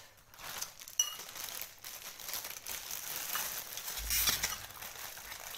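Metal spoon scraping and clinking in a ceramic bowl while eating, with one sharp ringing clink about a second in and a louder scrape and bump around four seconds in.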